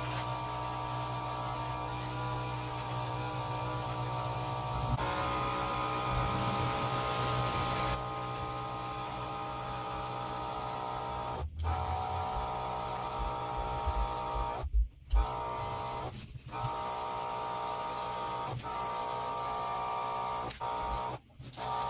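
A steady machine hum with a whine, broken off abruptly several times in the second half.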